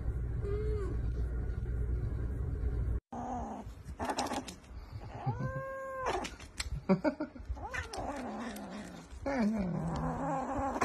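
A kitten mewing and crying loudly while it bites and licks at a lick-treat tube, with one long drawn-out mew and a lower falling cry near the end, amid wet smacking clicks. Before that comes a single short cat call over a steady low hum.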